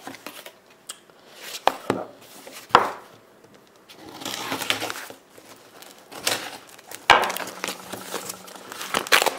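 A kitchen knife sawing through a tape-wrapped package, with knocks as the knife and package are set down on a wooden tabletop and rustling of the packaging. The knocks come irregularly, and a stretch of scraping cutting noise comes about four seconds in.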